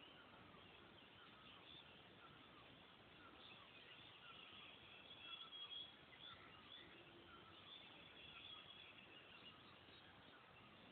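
Near silence, with faint, scattered chirping of birds in the background.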